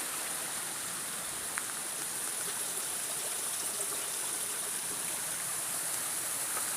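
A small river running over rocks and little waterfalls: a steady rush of water.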